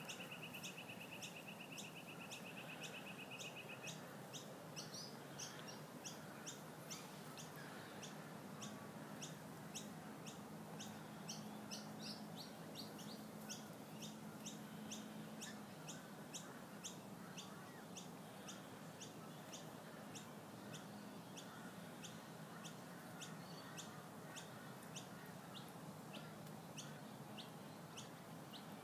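Faint garden birdsong: short high chirps repeating steadily two or three a second, with a fast trill over the first few seconds and a few other brief calls in between.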